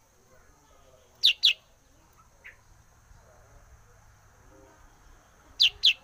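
Black-headed bulbul calling: a sharp two-note call, each note sliding downward, about a second in and again near the end, with a faint single note in between.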